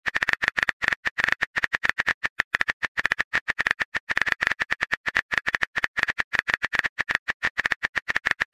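Rapid keyboard typing clicks from a phone texting app, about ten a second, one for each letter as a message is typed out. Each click is short and sharp with a slight high ring.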